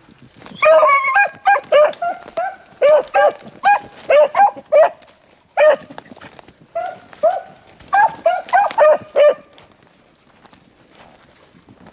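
Beagle hounds barking in quick runs of short barks, each rising and falling in pitch, about three a second, with two brief breaks midway. The barking stops near the end.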